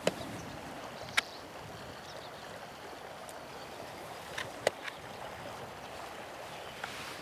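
Steady rush of flowing river water, with a few sharp clicks as gloved hands handle the back of a wooden 4x5 field camera.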